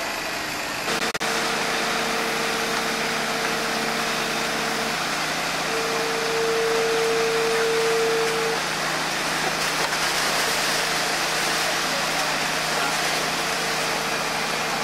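Hydraulic excavator at work: its engine runs steadily under a high hydraulic whine. The whine comes in about a second in, breaks off near the middle and returns louder for a few seconds.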